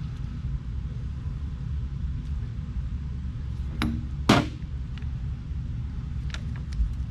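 Metal-on-metal knocks from taking apart a TrueTrac differential: two sharp clanks about four seconds in, the second the loudest and ringing briefly, then a few lighter clicks, over a steady low rumble.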